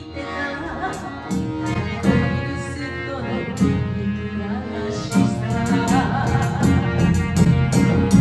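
Live chindon band music: a clarinet melody over accordion, with chindon drums and a large bass drum, and a woman singing. The drum strokes come more often from about five seconds in.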